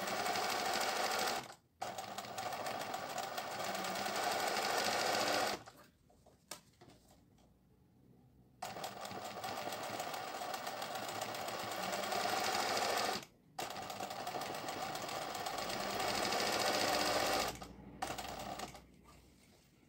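Singer 20U industrial zigzag sewing machine stitching an appliqué in runs of a few seconds. It stops briefly twice, pauses longer about six seconds in, and stops near the end.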